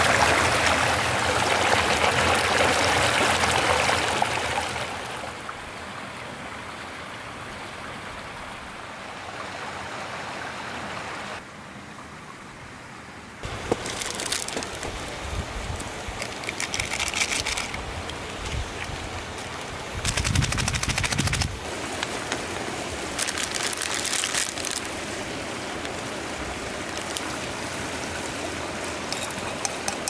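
Mountain stream rushing over rocks, loud for the first four seconds or so and then softer. From about halfway, clicks and scrapes of a utensil in a steel pot on a camp stove, with a short low rumble in between and a run of quick ticks near the end.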